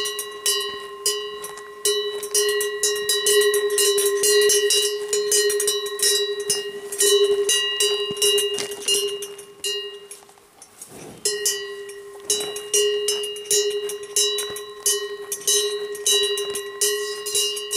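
A cow's neck bell ringing and clanking with rapid, irregular strikes of the clapper as the cow grazes and jerks its head to tear grass. It goes nearly quiet for about a second a little past the middle, then rings on.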